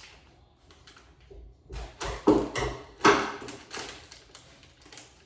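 Kitchen handling noises: a quick run of knocks, clatter and rustling starting about two seconds in and lasting about two seconds, the sharpest knocks near the middle, as things are fumbled and handled on the counter.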